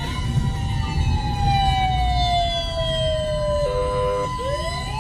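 A siren wailing: each cycle is a quick rise in pitch followed by a long, slow fall, and the cycle starts again near the end. It is heard from inside a moving car over the low rumble of the car's road noise.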